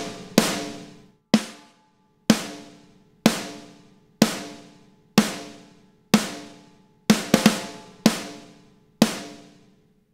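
Soloed snare drum playing back: the recorded snare layered with a triggered rock snare sample. It strikes about once a second, each hit ringing out and dying away, with a few quick extra hits near the end.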